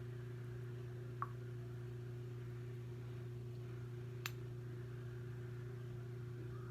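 Steady low electrical hum, with two brief light clicks, one about a second in and one about four seconds in.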